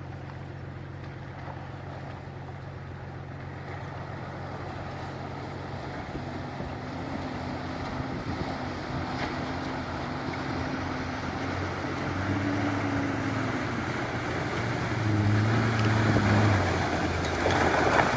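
GQ Nissan Patrol's turbo-diesel engine running and growing steadily louder as it comes closer, its note rising and easing with the throttle. Near the end, loud water splashing sets in as it drives through the shallow river.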